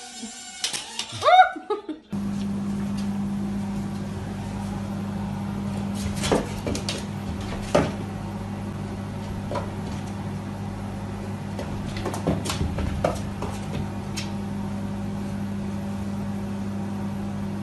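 A steady low machine hum begins about two seconds in and carries on, with scattered clicks and knocks over it. Just before the hum starts there is a short pitched cry that rises and falls.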